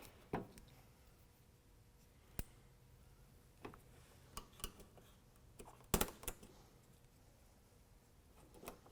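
Scattered short clicks and taps, seven or eight over several seconds, from the factory plastic panel being fitted back under a pickup truck's headlight.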